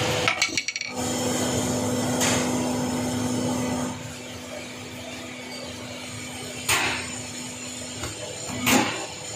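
Steel-on-carbide clinking as buttons are handled at the drill bit head, then a press machine's steady hum that drops in level about halfway through and stops near the end. Over the hum come three sharp metallic knocks as the press seats tungsten carbide buttons into the bit.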